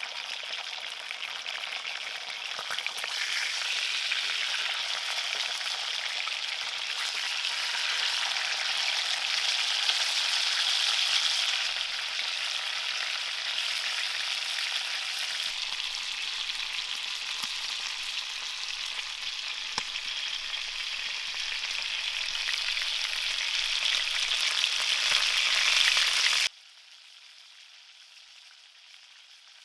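Food frying, a steady sizzle that cuts off abruptly near the end.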